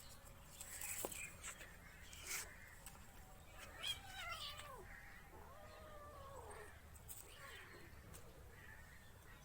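Two drawn-out animal calls, each rising and then falling in pitch, a little over a second apart, with a few faint clicks before them.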